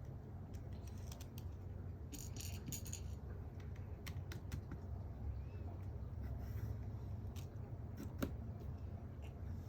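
Scattered light clicks and a brief rattle of small hard objects, like keys or bits of metal being handled, over a steady low hum. There is a short cluster of rattling about two seconds in and a few single sharp clicks later, the sharpest a little past eight seconds.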